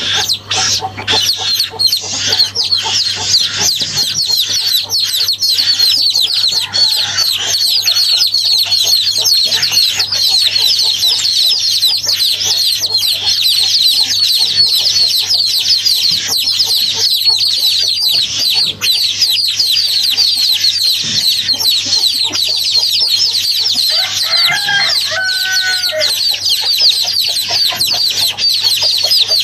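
Many birds chirping densely and without a break. A lower, louder call comes in briefly near the end.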